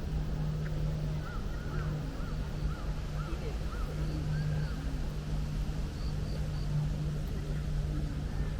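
A bird calling in a quick series of short, arched notes for a few seconds, with fainter high chirps from another bird, over a steady low hum.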